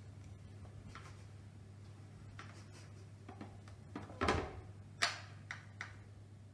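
Plastic cat flap swinging shut after a cat has pushed out through it, clacking against its frame: a soft knock about four seconds in, a sharper click a second later, then a couple of lighter taps as it settles.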